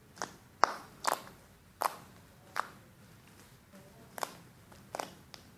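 Purple slime mixed with foam beads being pressed and poked, giving sharp clicking pops about once or twice a second.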